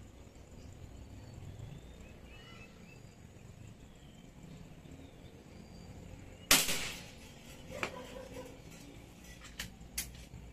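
A single sharp shot from a homemade rifle, a crack that dies away over about half a second, followed by a few light clicks.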